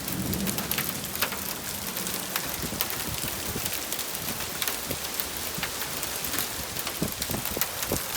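Small hail pellets and rain coming down steadily, a constant hiss dotted with many sharp little ticks of pellets striking hard surfaces.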